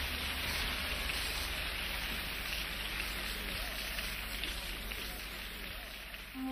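Audience applauding, a steady even patter of clapping that eases off slightly near the end.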